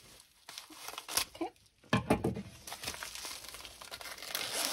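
Packaging of a diamond painting kit crinkling and rustling as it is handled and unwrapped, in irregular bursts, loudest about two seconds in.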